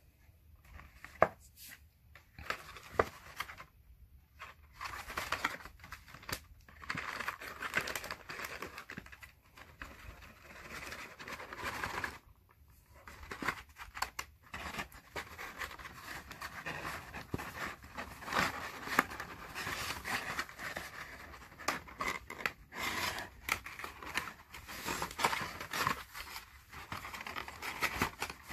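Hexagonal white card box being handled and folded: irregular paper rustling and scraping as its flaps and tabs are bent and tucked in, with sharp clicks throughout, the first one loud and about a second in.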